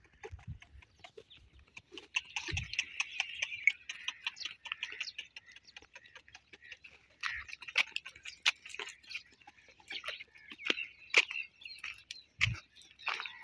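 Donkey walking under a rider, its hooves clicking and crunching on dry, loose dirt in an irregular patter, with birds chirping.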